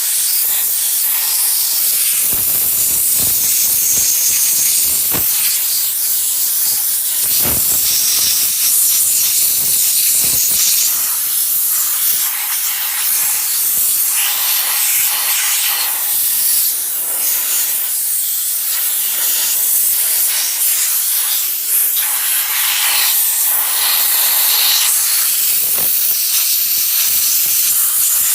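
Compressed air hissing loudly from an old air chuck, blowing debris out from under the cover of a Homelite chainsaw. The blast is steady and changes in strength as the nozzle moves, with a few short knocks in the first ten seconds or so.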